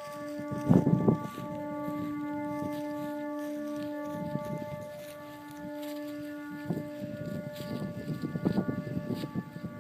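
A set of Vietnamese kite flutes of the 'train horn' kind, sounding in the wind as a steady chord of several held pitches, like a distant horn or siren. The lowest note drops out around the middle and comes back. Wind gusts buffet the microphone about a second in and again through the second half.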